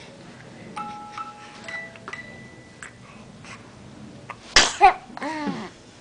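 A crib mobile's music box chimes a few soft notes. About four and a half seconds in comes a loud sneeze, two sharp bursts close together, followed by a short vocal sound that rises and falls in pitch.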